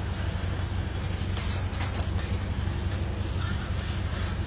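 Steady low hum of an idling vehicle engine, with a few brief scuffing sounds about a second and a half to two seconds in.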